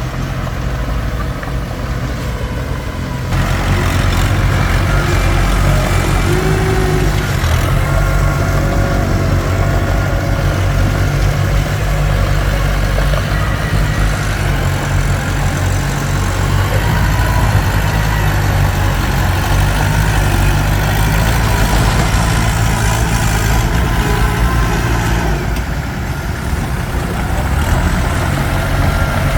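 Komatsu D21P bulldozer's diesel engine running steadily, getting louder and harder-working about three seconds in and easing back near the end.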